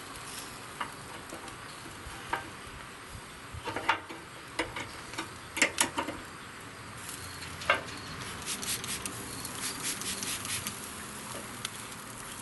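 Metal rib hooks clicking and clinking against the Pit Barrel Cooker's steel bars as racks of ribs are lifted and hung back in the barrel, in scattered clicks with a dense run of fine ticks in the second half, over a steady hiss.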